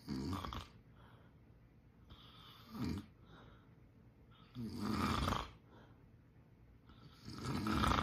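A man snoring in his sleep: a short snore at the start, a brief one about three seconds in, then two longer, louder snores about two and a half seconds apart.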